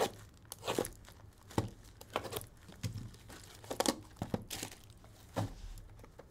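Plastic shrink wrap being torn and crinkled off a hobby box of trading cards, then the cardboard mini-boxes inside handled: a string of short, irregular crackles and rips.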